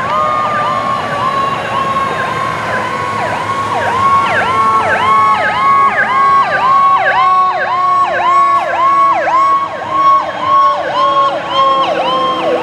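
Fire engine sirens wailing on an emergency response: a fast yelp that swoops up and down about two to three times a second, over a second, steady siren tone that slowly falls in pitch.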